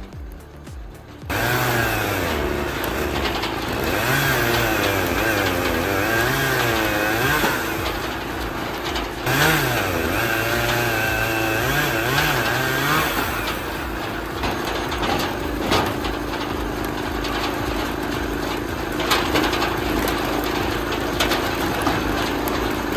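Engine of a homemade hydraulic log splitter starting up about a second in, then running with its pitch repeatedly dropping and recovering before it settles into a steady run. A few short knocks sound in the second half.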